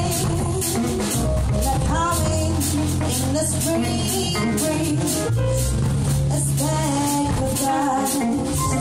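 A live band playing: a woman sings over upright double bass, electric guitar, keyboard and drum kit. Her voice bends between notes over held bass notes and a steady beat of light percussion.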